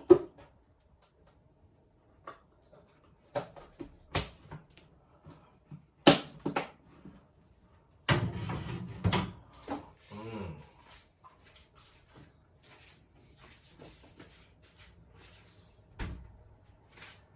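Scattered knocks and clicks of objects being handled, with a sharp one right at the start and another about six seconds in, and a stretch of rustling about eight seconds in.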